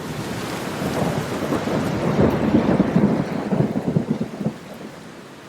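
Steady rain falling, with a low crackling rumble that swells and then dies away about four and a half seconds in, leaving the even hiss of the rain.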